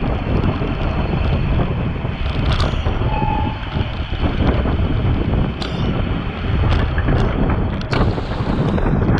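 Wind buffeting a bicycle-mounted action camera's microphone while riding in a race, a loud steady rumble with several sharp clicks and a brief faint tone about three seconds in.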